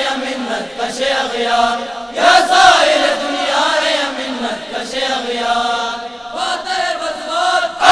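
A chorus of young male voices singing a devotional Urdu tarana together in a chant-like style, in long phrases with short breaks about two and six seconds in.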